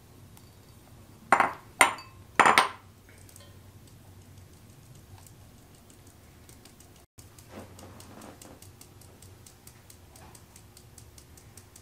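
Three loud clinks as flour bowls are knocked against the rim of a metal mesh sieve to empty them. Then a fast, even run of light ticks as the sieve is tapped to sift the flour into the bowl beneath.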